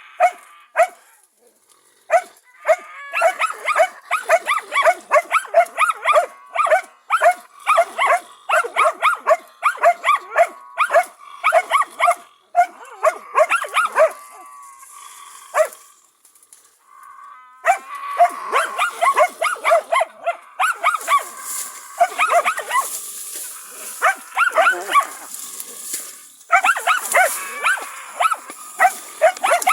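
Karelo-Finnish Laika hunting dogs barking in rapid, high-pitched volleys of several barks a second while working a raccoon dog at bay, with a lull of a few seconds about halfway through.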